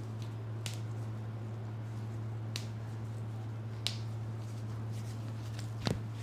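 A few short sharp clicks, four in all, over a steady low hum; the last, near the end, is the loudest, more of a knock.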